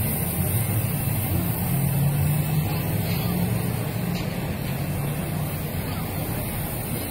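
Steady low rumble of city road traffic, engines and tyres of passing cars and trucks.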